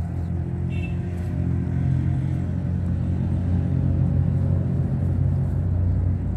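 A motor engine running steadily with a low rumble, a little louder from about two seconds in.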